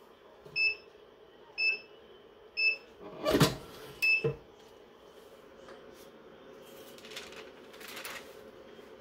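Heat press timer beeping in short high beeps about once a second, signalling the pressing time is up. A loud clunk a little over three seconds in as the press is opened, then faint paper rustling near the end as the cover sheet is lifted.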